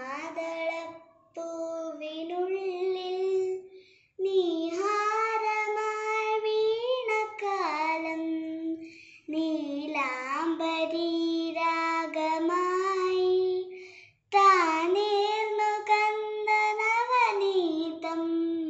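A young girl singing a Malayalam film song solo and unaccompanied, in long drawn-out phrases with wavering held notes, pausing briefly for breath between them.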